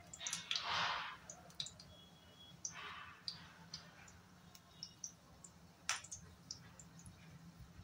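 Hot oil crackling and spitting around a red-lentil-paste patty shallow-frying in a nonstick pan: scattered sharp pops throughout, with a short sizzling hiss about a second in and a weaker one around three seconds.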